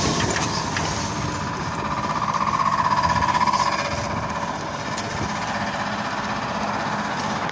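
BKM-321 trolleybus standing at a stop with its doors open, its onboard electrical machinery running with a fast-pulsing hum that is loudest about two to four seconds in.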